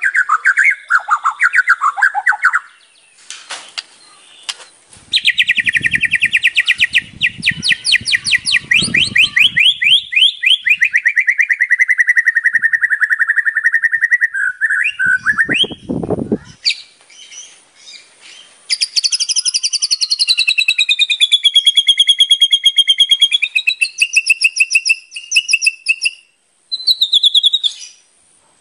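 White-rumped shama (murai batu) in full song. A long, fast trill of rapid notes slides slowly down in pitch, then after a short pause come clear whistled phrases that swoop up and down, with another brief phrase near the end.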